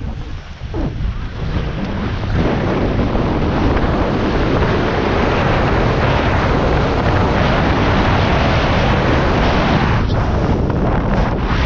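Heavy wind buffeting the microphone: a loud, rough rushing rumble that builds about two seconds in and stays strong.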